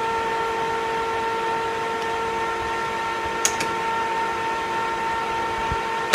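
Metal lathe running with a steady high whine of even tones, with a faint tick about three and a half seconds in and a sharp click at the end.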